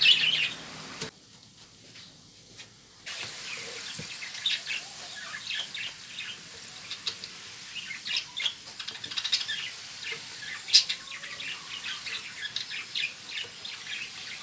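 Hot oil sizzling and crackling in a frying pan around potato fries in their final fry as they are lifted out with a wire skimmer, a dense run of short sharp crackles. The crackle drops off briefly about a second in, then returns, with one sharp click near the end.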